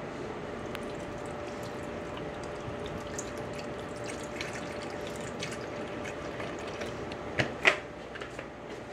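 Liquid pouring in a steady stream from a carton into a plastic blender jar. Two sharp knocks come near the end.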